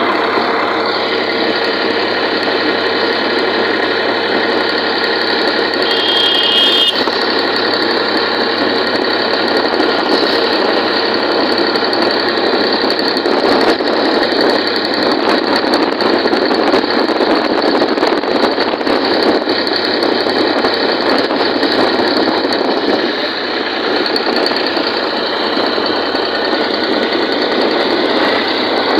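Sonalika tractor's diesel engine running steadily.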